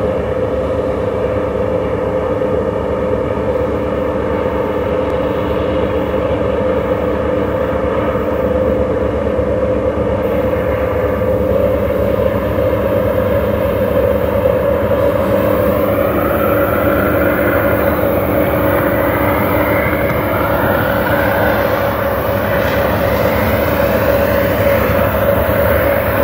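Union Pacific diesel-electric locomotives, a GE AC44CWCTE and an EMD SD70ACe, working hard up a grade and heard from afar as a steady engine drone. A whine rising in pitch joins it about two-thirds of the way in.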